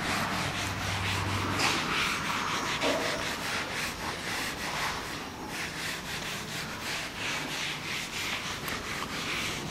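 A duster being rubbed hard across a whiteboard, wiping off marker writing in quick, repeated back-and-forth strokes.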